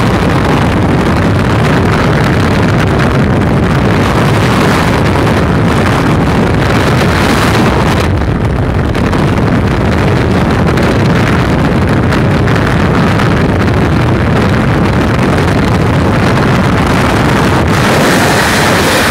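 Loud, steady wind noise from freefall buffeting a skydiver's camera microphone.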